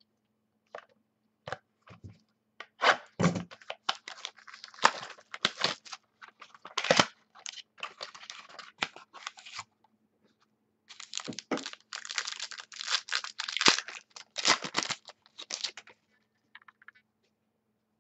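A trading-card pack being torn open and its cards handled: rapid crinkling and tearing of the wrapper with quick clicks and rustles, in two long runs with a short pause between.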